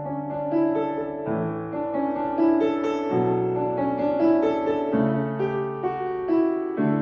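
Solo piano playing a slow, reflective elementary piece in D major. The notes ring on and overlap under the sustain pedal, with a new bass note about every one to two seconds.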